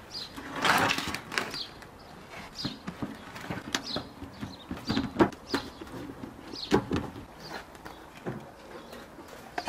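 Scattered knocks and rustling from hands working dough in a pan and handling plastic film, with small birds chirping throughout.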